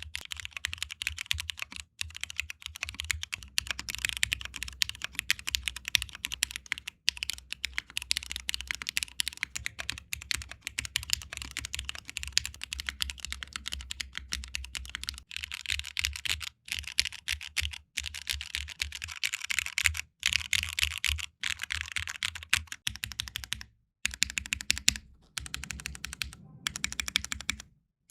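Continuous fast typing on a KBDfans Agar custom mechanical keyboard with Cherry MX Black linear switches and PBT keycaps: a dense stream of keystroke clacks, broken by a couple of short pauses near the end.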